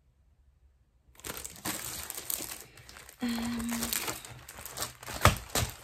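Clear plastic chart sleeve crinkling and rustling as it is handled, starting about a second in, with a sharp knock near the end.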